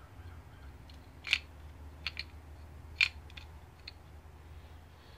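Small clicks and taps of carburetor parts handled by hand while the float and float needle are fitted: two sharper clicks about a second and a half apart and a few fainter ticks, over a steady low hum.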